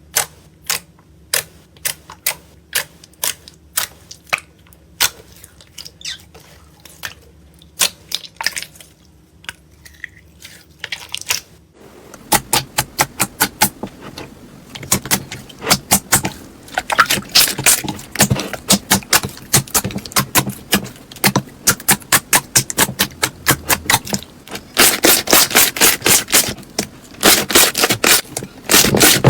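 Slime being pressed and worked by hand, giving sharp popping clicks, spaced out at first and then, about twelve seconds in, rapid and louder crackling pops.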